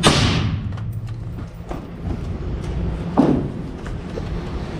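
Two rifle shots about three seconds apart, the first at the very start and the loudest, each with a short echoing tail, over a steady low rumble.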